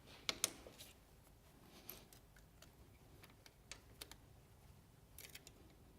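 Faint, scattered metal clicks of a 3 mm Allen key tightening the wedges in a steel cutter block: a few in the first second, then single clicks and a short cluster near the end.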